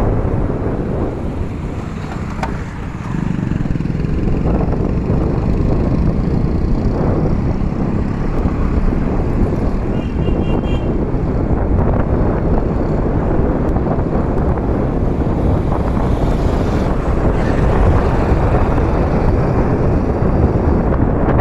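Wind buffeting the microphone over the steady running of a motor scooter riding along a road, with engine and tyre noise underneath.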